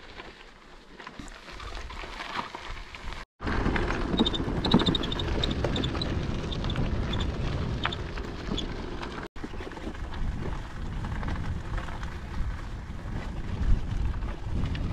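Wind rumbling on the microphone and tyres crunching over a gravel track as a loaded tandem bicycle is ridden. The sound is in three sections with abrupt cuts about three seconds in and about nine seconds in, and it is louder after the first cut.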